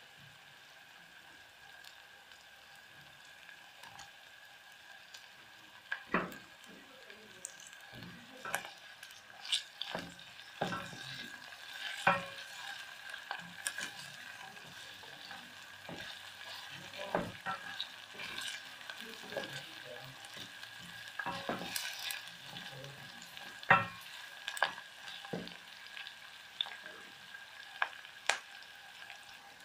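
Sliced red onions sizzling in oil in a stainless steel pot, a faint steady hiss. A wooden spoon stirs them, with scattered sharp taps and scrapes against the pot from about six seconds in.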